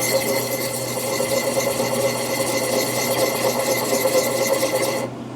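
Coarse sharpening stone rubbing over the steel bit of an axe head, honing the edge: a continuous gritty scraping that pauses briefly near the end.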